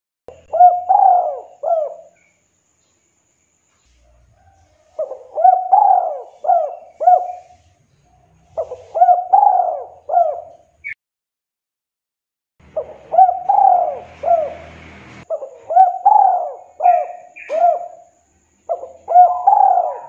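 Spotted dove giving its 'kuk 2' cooing song: about six phrases, each a run of four or five soft coos that rise and fall in pitch, separated by short pauses.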